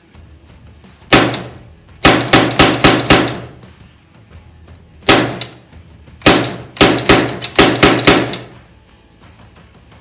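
Shots from a 4.5 mm (.177) CO2 air rifle built as an AR15/M4: a single shot, then a fast string of about six, another single shot, and a second string of about seven, each shot sharp with a short metallic ring.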